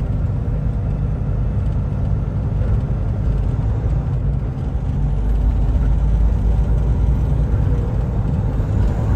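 Steady drone of a semi truck cruising at highway speed, heard inside the cab: low engine rumble with tyre noise on wet pavement.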